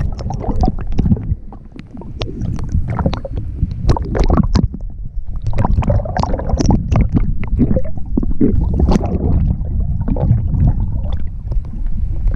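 Water sloshing and splashing against a camera at the surface, dipping in and out of the water, with gurgling bubbles and a low rumble from the waterproof housing.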